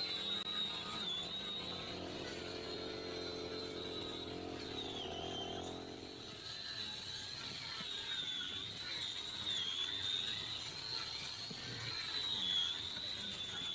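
Hand-held electric angle grinder running with a high whine that dips in pitch several times as the disc is pressed against the fiberglass hull. It is roughing and cleaning the edges so that the fiberglass glue will bond.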